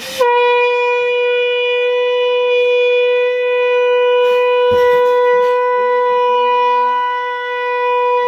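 A conch shell (shankh) blown in one long, steady, unbroken blast, held at a single pitch with a bright, buzzing tone.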